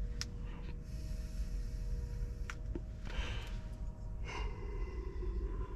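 A person drawing a long hit through a vape cartridge pen, then breathing the vapour out about three seconds in.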